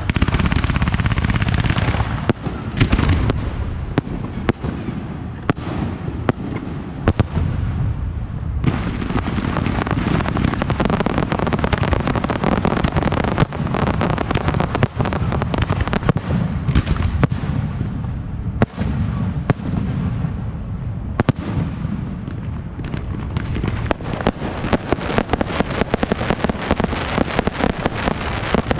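Continuous barrage of fireworks and firecrackers: a dense crackling roar packed with many sharp bangs.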